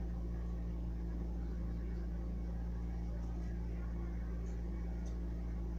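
Steady low background hum with several even low tones, unchanging throughout, with a few faint small ticks over it.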